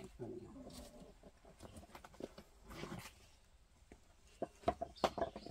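Hens clucking now and then, with scattered light knocks and rustles of dry oak-bark roofing slabs being handled.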